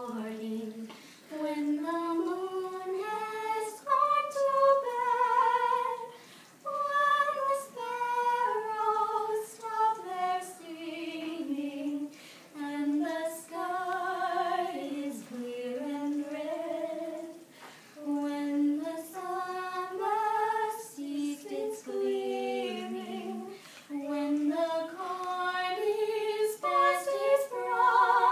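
Two women singing a song together without accompaniment, the melody moving in held notes.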